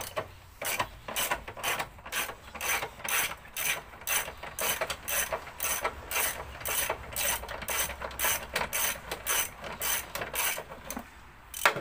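Socket ratchet clicking in quick, repeated strokes as a 13 mm battery hold-down bracket bolt is undone, with a louder click near the end.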